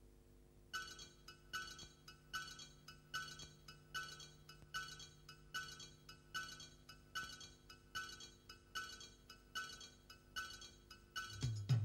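Rhythmic metallic clinks, one about every 0.8 seconds, each ringing briefly; low drumming comes in near the end.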